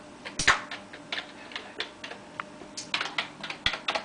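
Typing on a computer keyboard: irregular key clacks in quick bursts, with two heavier knocks, one about half a second in and one near the end.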